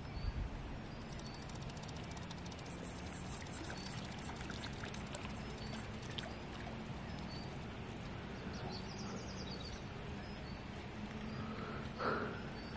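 Quiet outdoor ambience at a pond's edge: faint steady background noise with a small bird chirping about once a second, and faint rapid ticking in the first few seconds as a spinning reel is cranked to bring the lure in. A brief louder sound comes near the end.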